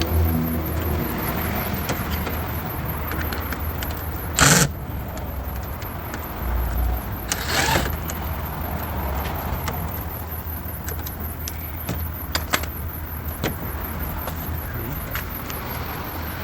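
Tools working on bumper bolts and trim: scattered clicks and knocks, with two short, loud bursts of noise about four and seven seconds in, over a steady low hum.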